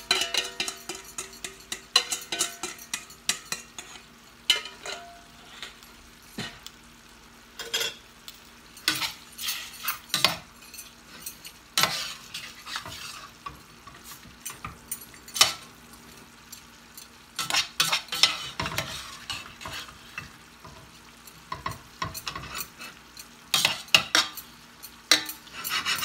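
Slotted metal spoon scraping and clinking against a stainless steel saucepan as lo mein noodles, vegetables and broccoli are stirred, in irregular strokes with short pauses. Food sizzles faintly in the hot pan underneath.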